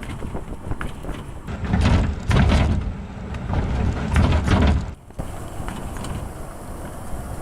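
A pickup truck driving with wind on the microphone. Heavy low rumbling surges with some clatter come about one and a half seconds in and last about three seconds, then cut off suddenly, leaving steadier wind and road noise.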